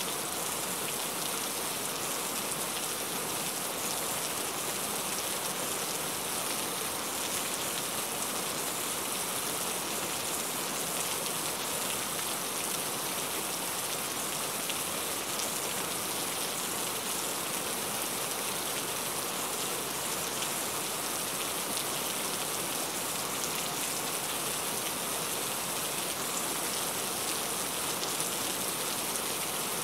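Heavy rain falling steadily: an even hiss with fine, scattered ticks of individual drops striking a surface.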